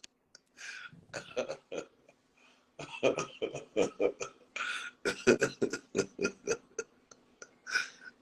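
Indistinct, muffled voices in short irregular bursts, with brief drops to silence between them.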